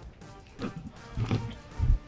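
Background music, with a few dull thumps in the second half.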